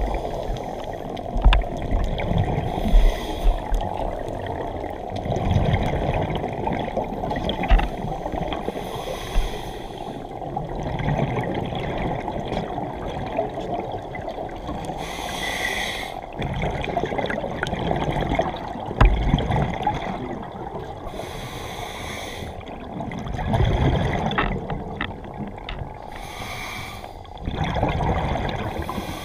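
Scuba breathing heard underwater through a regulator: short hissing inhales alternate every few seconds with low, rumbling bursts of exhaled bubbles, over a steady wash of water noise.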